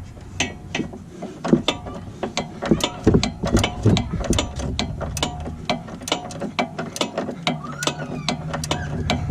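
A ratchet clicking in a string of sharp, uneven clicks, a few a second, as it works a sway bar end link nut. A low steady hum rises in the second half.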